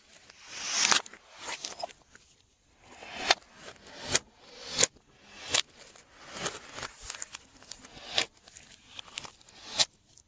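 Glossy slime being worked: irregular sharp, sticky clicks and pops, roughly one a second, with softer squishing between them.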